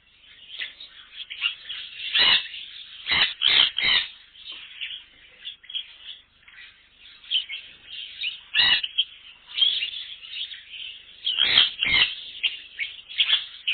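A colony of small aviary birds chirping and calling together in a dense, continuous chatter, with louder sharp calls rising above it now and then: a loud cluster around two to four seconds in, one near the middle, and a pair a little before the end.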